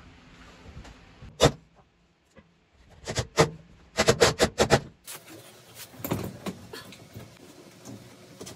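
Knocks and clatter from mounting work on a plywood wall: a single knock, then a cluster of sharp knocks and a fast run of about five more. These are followed by scraping and scattered clicks as a pleated filter canister is seated and clamped onto a dust collector's drum.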